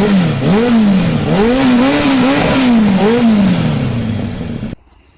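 Harley-Davidson Low Rider ST's Milwaukee-Eight 117 V-twin engine being revved several times, the pitch rising and falling with each blip of the throttle, then cutting off abruptly near the end.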